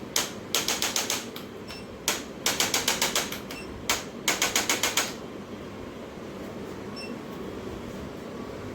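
Handheld chiropractic adjusting instrument firing rapid bursts of sharp mechanical clicks, about eight or nine a second, in several short runs; the clicking stops about five seconds in, leaving a steady low hum.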